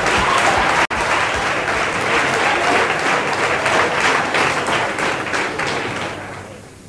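Audience applauding at the end of a song, with a brief dropout about a second in; the applause fades away near the end.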